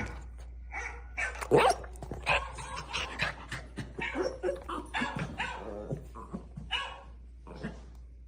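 Dog vocalizing in a quick string of short yips, whines and barks, the loudest about one and a half seconds in, dying away near the end.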